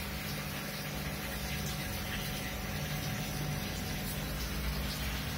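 Aquarium air bubbler sending up a thick stream of bubbles, a steady bubbling water rush over a steady low hum.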